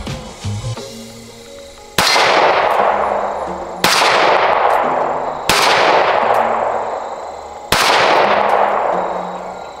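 Springfield Hellcat 9mm micro pistol with a compensator, fired four times at roughly two-second intervals. Each shot is a sharp crack with a long echoing tail that dies away before the next.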